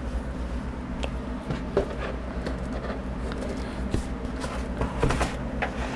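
Thick cardboard game boards being handled in and against a cardboard box: scattered light taps and scrapes over a steady low hum.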